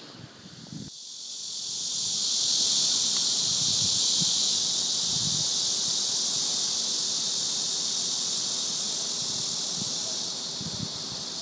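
Steady high-pitched hiss that swells in over the first couple of seconds, holds, and drops a little near the end.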